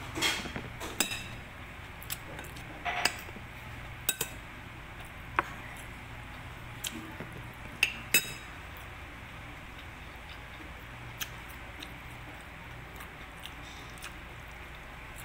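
Metal spoon clinking and scraping against a plate of food: a dozen or so sharp clinks, most of them in the first half, with the loudest pair about eight seconds in.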